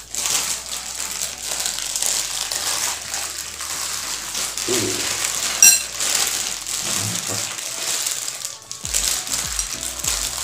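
Clear plastic bag crinkling and rustling as mixed seafood in sauce is tipped out of it into a ceramic bowl. A single bright clink sounds about five and a half seconds in.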